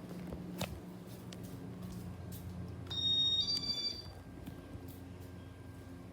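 Casablanca Hermosa 52-inch ceiling fan running with a steady motor hum and faint repeated ticks. About three seconds in, a short high electronic tone that steps up in pitch sounds over it for about a second.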